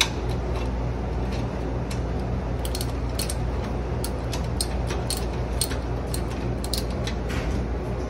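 Socket ratchet wrench clicking in short irregular runs, starting a couple of seconds in, as the screws holding a refrigerator's fan-motor mounting plate are undone. A steady low hum sits underneath.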